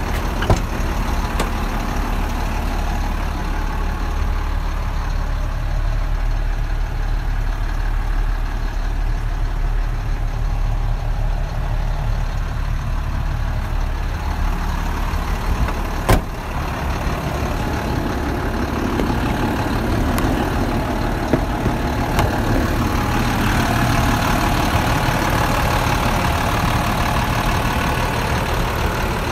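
Diesel engine of a 2003 International 7400 medium-duty truck idling steadily, growing fuller in the middle range in the second half as it is heard up close at the open engine bay. A single sharp knock about halfway through.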